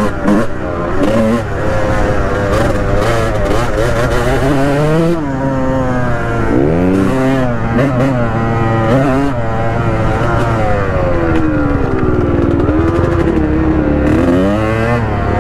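Honda dirt bike engine being ridden on a trail, revving up and down with its pitch rising and falling again and again, heard from the rider's helmet camera.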